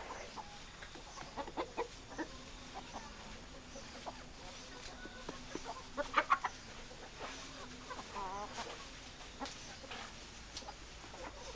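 Hens clucking: scattered short clucks, with a louder run of three quick clucks about six seconds in.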